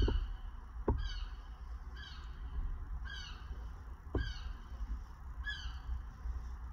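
A bird calling repeatedly, a short falling call about once a second, over a low steady rumble.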